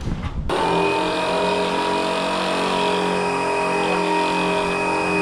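48-volt electric jet boat's three-phase electric motor driving its jet unit and pumping water out of the nozzle. It starts about half a second in and runs at a steady speed: a whine of several steady tones over the rush of water. The motor sounds lightly loaded, which the builder thinks means the impellers are not aggressive enough.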